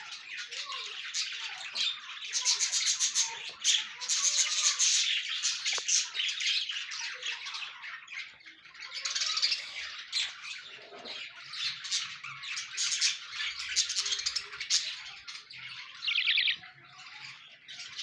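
Budgerigars chattering and squawking without pause, their calls overlapping, with rapid rasping squawks now and then, one of them near the end.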